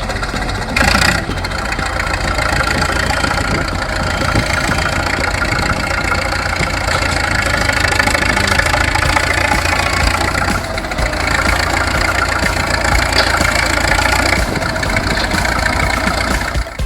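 Engine idling steadily, with a brief louder burst about a second in.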